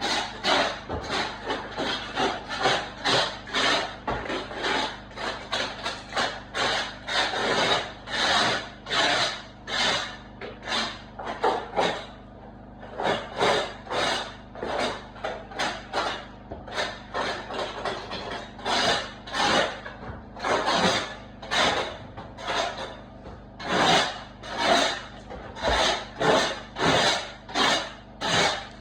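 A hand tool worked back and forth in steady rasping strokes, about two a second, scraping on a hard surface, with a brief pause about twelve seconds in.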